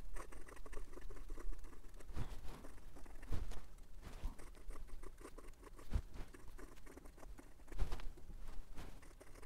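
Fine steel nib of a MaJohn P136 fountain pen scratching across notebook paper in cursive writing, an irregular run of faint scratches and scrapes from a nib with noticeable feedback. A few soft thuds come through between the strokes.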